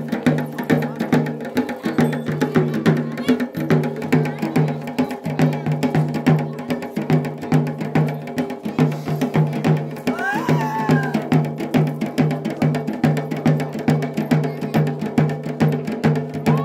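Fast, steady drumming for a dance: a low drum beat about twice a second under quicker, sharp strokes. A voice calls out briefly about ten seconds in.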